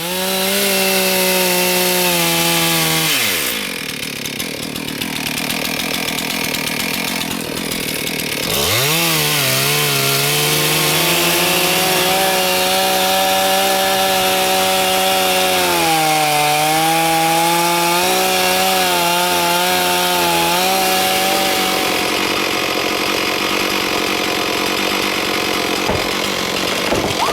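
Two-stroke chainsaw held at high revs while a faller cuts a hazard tree; the engine drops back about three seconds in, comes back up a few seconds later and sags briefly under load mid-cut. For the last few seconds the engine note gives way to a steady rushing noise.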